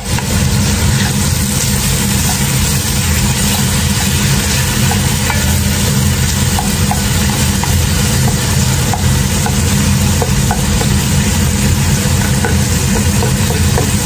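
Pork strips and sliced garlic frying in a stainless pot, sizzling steadily, while a wooden spatula stirs and scrapes the bottom with small scattered clicks. A steady low hum runs underneath.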